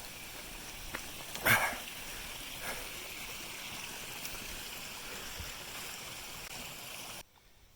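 Small creek trickling steadily, with one brief sharp knock about a second and a half in; the water sound cuts off abruptly near the end.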